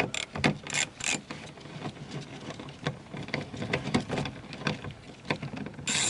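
Socket ratchet clicking in quick, uneven runs as a small bolt holding the door handle assembly is backed out, with a few louder clacks.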